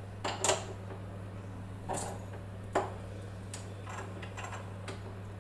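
Scattered light clicks and knocks of kitchen equipment and utensils being handled, over a steady low hum.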